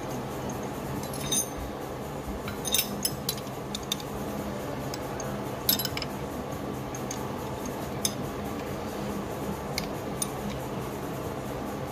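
Scattered sharp metallic clicks and clinks as a clutch master cylinder and its braided steel clutch line fitting are handled, over a steady low hum.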